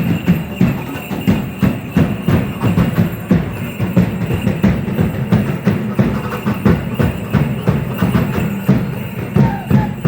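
Drums beating a quick, steady, even rhythm for a traditional Mexican danza, about two to three strikes a second.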